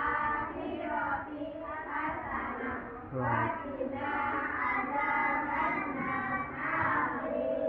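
A group of young children singing together in unison, with held notes.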